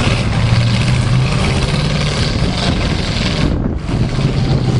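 Demolition derby car engines running loudly in the arena, a steady low drone under a dense noisy wash, with a brief dip about three and a half seconds in.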